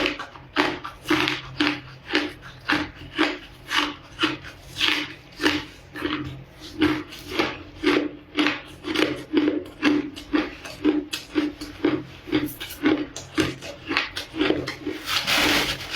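Ice being crunched between the teeth while chewing, a steady run of sharp crunches about twice a second.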